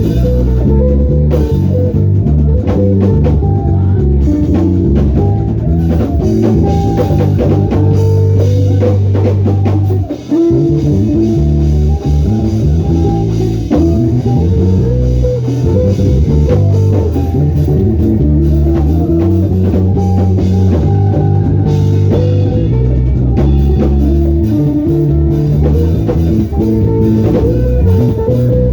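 Band playing an instrumental groove, with a prominent bass guitar line, guitar and drum kit. The band drops out briefly about ten seconds in.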